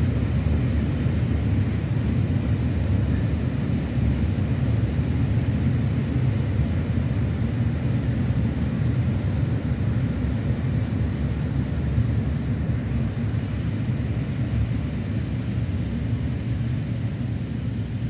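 Freight train of Fas and Eas open wagons rolling past: a steady low rumble of wheels on rails that eases slightly near the end as the last wagon goes by.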